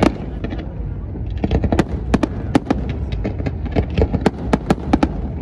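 Aerial fireworks display: a rapid, irregular volley of sharp bangs and pops from comets and shells launching and bursting, several a second after a short lull near the start, over a steady low rumble.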